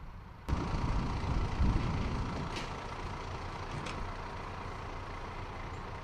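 Steady outdoor background noise with a low rumble that comes in abruptly about half a second in, with two faint clicks a little later.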